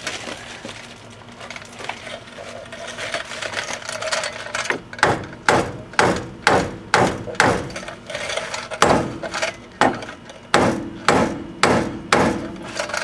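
Hammer blows on a car's wheel hub assembly to knock it loose, about two strikes a second with a short metallic ring. They start about five seconds in, after some scraping and handling of parts.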